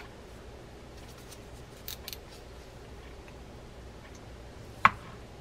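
Small plastic clicks from the rear drag collar of a Shimano Sedona 4000R spinning reel being worked by hand: a couple of faint clicks about two seconds in, then one sharp, loud click near the end.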